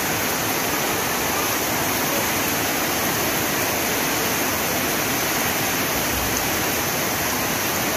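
Heavy rain falling, a dense, steady hiss with no breaks.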